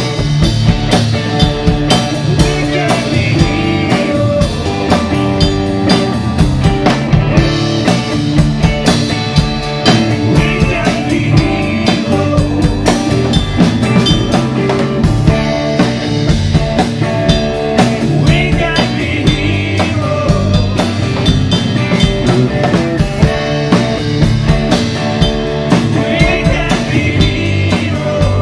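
Live band playing a song, a drum kit keeping a steady beat under electric guitar.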